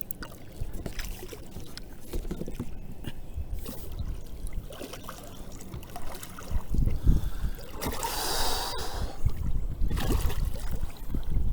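Water trickling and splashing around a kayak, with irregular low knocks and handling noise against the hull, and a louder rush of splashing about eight seconds in.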